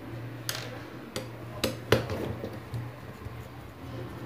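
Sharp clicks and clinks of hard plastic and small metal parts as a heated hair brush's housing and the screws holding its heating element are worked with a screwdriver. There are about five clicks in the first two seconds, the loudest near two seconds in, over a low steady hum.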